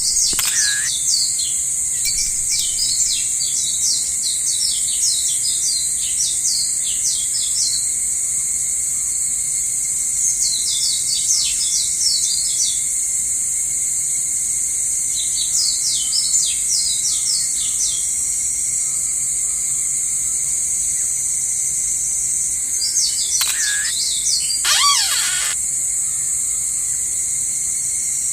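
Steady high-pitched chorus of crickets, with small birds chirping in quick runs of notes several times over it, and one lower, wavering call about 25 seconds in.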